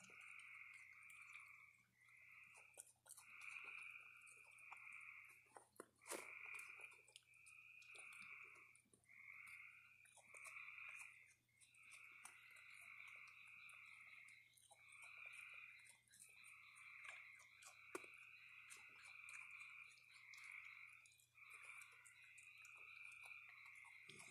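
Faint night chorus of calling frogs: overlapping two-pitched trilling calls about a second long, one after another without a break. Scattered faint crunchy clicks of raccoons chewing dry food sound over it.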